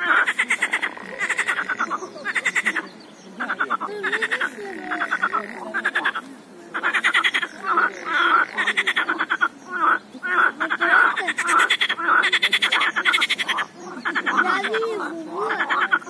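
A chorus of several frogs calling from a pond. Rapid pulsed croaking trains, each a second or two long, overlap one another with short gaps between.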